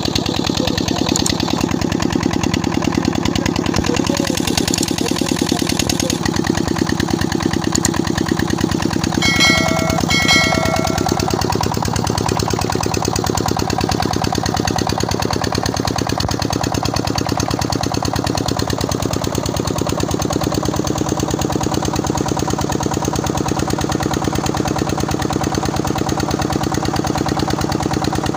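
FARA 25 HP single-cylinder diesel pump engine running steadily under load, driving a belt-driven water pump. Two short pitched tones sound about a second apart around ten seconds in.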